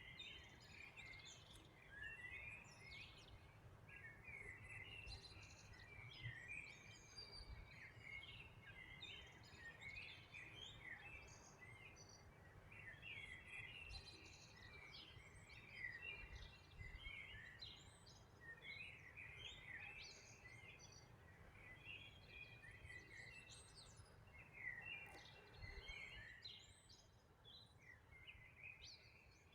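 Faint chorus of small songbirds chirping and singing, many quick short notes overlapping, thinning out near the end, over a low rumble.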